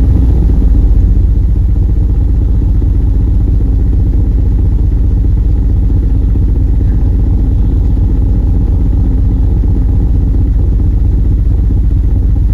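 Live noise music played loud: a thick, steady low drone that hardly changes.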